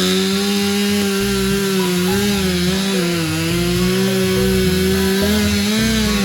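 Chainsaw running at full throttle after revving up, its steady high pitch dipping slightly now and then as it cuts into wood.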